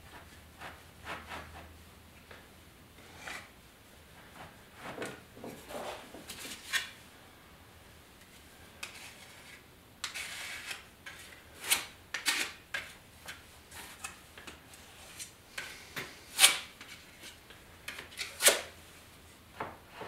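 Spreader scraping and tapping on a mixing board as two-part glazing putty is mixed with its hardener: scattered short scrapes and clicks, with two sharper knocks in the last few seconds.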